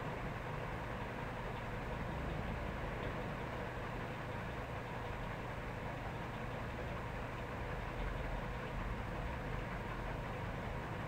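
A steady low hum with hiss and no distinct events.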